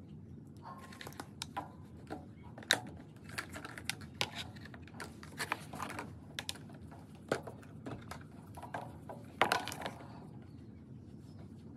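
Plastic tempera paint-cake trays being lifted, swapped and set down on a table: an irregular string of light clicks and knocks, the loudest about two and a half seconds in and near the end.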